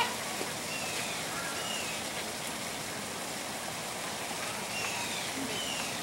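Steady rushing, water-like background noise, with a few faint, short falling bird calls from the flamingo flock: about a second in, near two seconds, and again about five seconds in.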